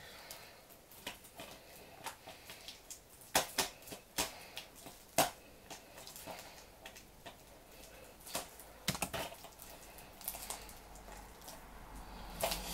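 Irregular clicks, taps and scratches of fingers working at a plastic DVD case that will not open, with a few sharper clicks about three to five seconds in and again near nine seconds.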